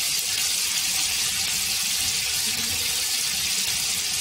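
Marinated chicken drumsticks shallow-frying in hot oil in a grill pan, sizzling with a steady high hiss.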